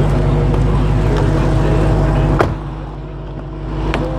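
Dodge Charger SRT Hellcat's supercharged 6.2-litre V8 idling steadily. About two and a half seconds in, the car door shuts with a single knock and the sound becomes duller and quieter; a small click follows near the end.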